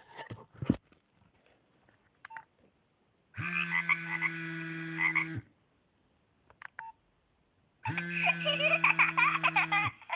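A button mobile phone ringing for an incoming call in two bursts of about two seconds each, with a steady buzzy undertone beneath a busier melodic line. A few short clicks come just before the first ring.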